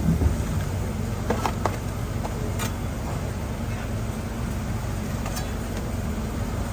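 Steady low mechanical hum of a food truck's kitchen equipment, with a few sharp clicks and clinks of utensils or containers.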